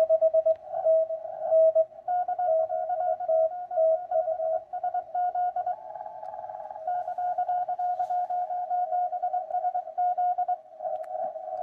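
Morse code (CW) received on an amateur radio transceiver: on-off keyed tones of dots and dashes from more than one station at slightly different pitches, with faint band noise underneath. One caller runs the letters of his callsign together, so it is hard to read.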